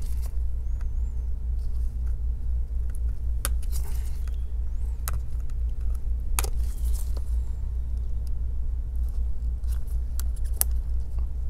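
A few small sharp clicks and taps from gloved hands working the display cable connector inside an opened MacBook Pro, scattered irregularly over a steady low hum.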